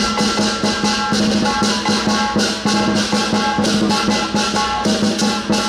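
Lion dance percussion: a drum beaten with clashing cymbals and a ringing gong in a fast, steady rhythm of about four strikes a second.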